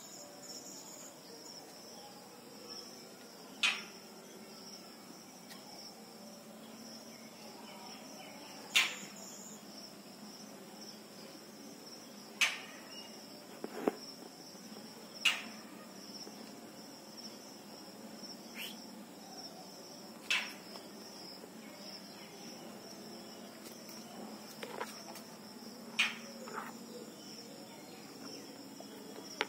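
Steady high-pitched insect chorus that drones on unbroken, with a brief sharp click every few seconds.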